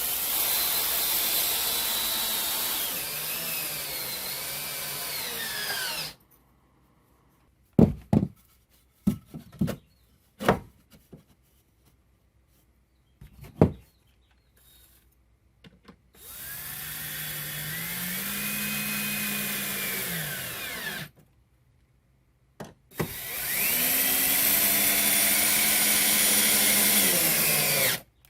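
A power drill driving 3-inch screws into a 2x4 in three runs of several seconds each. The motor's pitch rises as it speeds up and drops near the end of each run as the screw bites in. Between the first two runs there are a few sharp clicks and knocks.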